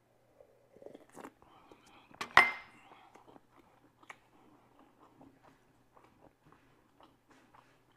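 Someone drinking from a mug and setting it down on a granite countertop with one sharp knock and a brief ring about two and a half seconds in, then chewing with small wet mouth clicks.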